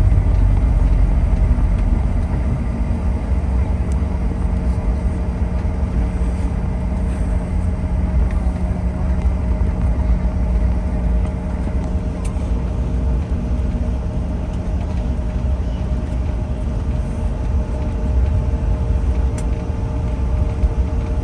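Inside the cabin of a CRJ-900 regional jet after landing: its rear-mounted GE CF34 turbofans run at low power with a steady hum and whine over a constant low rumble. The rumble is loudest at the very start and eases slightly over the first couple of seconds.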